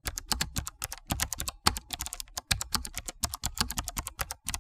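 Keyboard typing: rapid key clicks in quick runs, with short pauses about a second in and halfway through.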